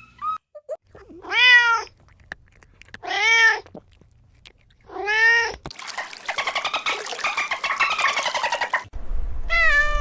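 A cat meowing: three separate meows, each rising then falling in pitch, then a longer call of about three seconds that pulses rapidly, and another meow beginning near the end.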